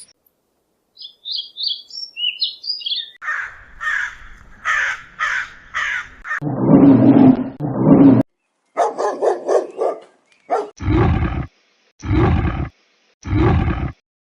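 A run of different animal calls one after another: high chirping bird notes, a row of harsh repeated calls, a long loud low roar-like call, then three loud short calls near the end.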